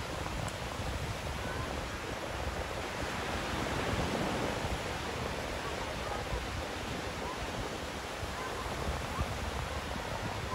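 Surf washing onto a sandy beach: a steady rush of breaking waves that swells a little about four seconds in.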